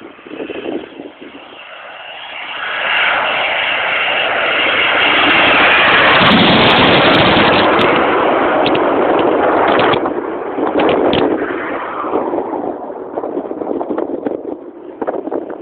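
Panavia Tornado jet passing close as it comes in to land, its twin RB199 turbofans swelling to a very loud peak with a few sharp crackles, then fading after about ten seconds.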